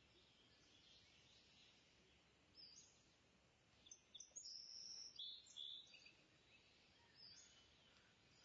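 Near silence: faint background hiss with a few brief, faint high chirps in the middle.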